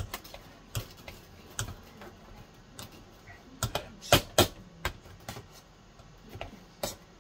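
Hand potato masher working boiled potatoes in a stainless steel saucepan: irregular knocks and clinks of the masher against the pan, the loudest two close together about four seconds in.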